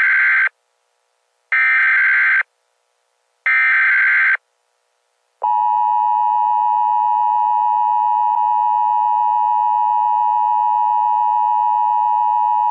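Emergency Alert System warning tones: the last of one short data burst and then two more, each about a second long with about a second's gap between. About five and a half seconds in, the steady two-tone EAS attention signal begins.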